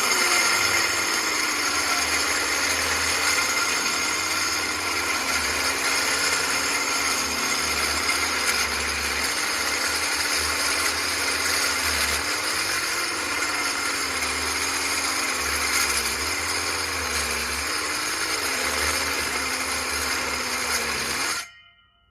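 Handheld masonry saw running and cutting into solid old brick, its motor pitch dipping and wavering as the blade loads up; it cuts slowly through the hard brick. It stops abruptly near the end.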